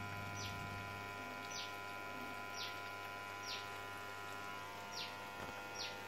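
LG Fuzzy Logic top-loading washing machine running, a faint steady hum with a thin whine over it. A short high chirp falling in pitch repeats about once a second.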